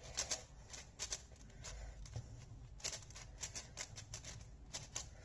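Plastic 6x6 speed cube being turned by hand: quick, irregular clicks and clacks of its layers.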